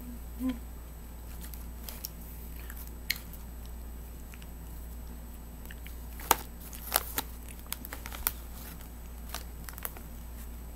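Mouth sounds of someone eating cotton candy: scattered wet clicks and lip smacks, with a cluster of sharper clicks about six to eight seconds in, over a steady low hum.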